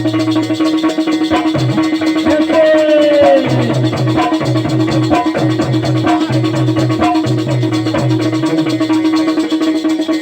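Instrumental music of a Bundeli Rai folk song, with no voice. A steady drone runs under a repeating bass figure and fast, even percussion, and a lead tone glides downward about three seconds in.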